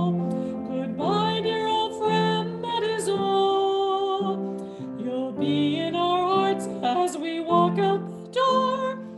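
A woman singing with piano accompaniment, holding long notes with vibrato over steady piano chords.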